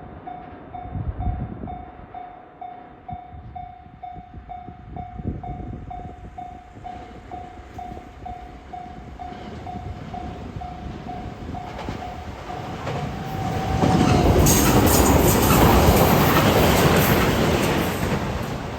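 Japanese railway level-crossing warning bell dinging in a rapid steady repeat. A little past halfway a train comes through the crossing with loud rolling wheel-and-rail noise that becomes the loudest sound and drowns out the bell, then eases off toward the end.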